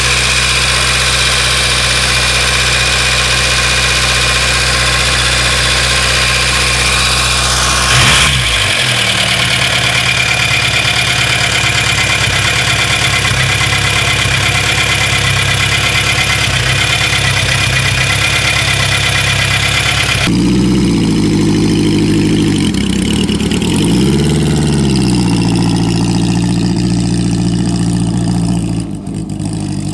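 Ariel Square Four motorcycle engines running: a steady idle, which changes abruptly to a different idle about a quarter of the way in. About two-thirds of the way through it changes again to a 1939 Square Four 4G being ridden off, its engine revving up and down, then dropping in level near the end.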